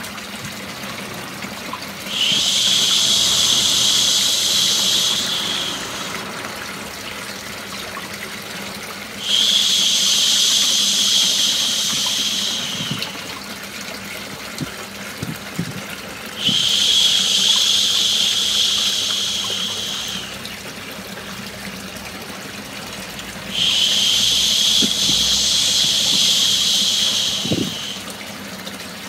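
A person's long "shhh" shushing, four times, each shush lasting three to four seconds and coming about every seven seconds. Under it is a steady rush of running water. The shushing is meant to soothe a baby to sleep.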